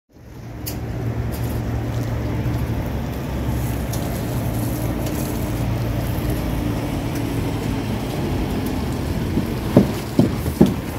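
A steady low motor hum over outdoor background noise, fading in at the start; a few brief short sounds come near the end.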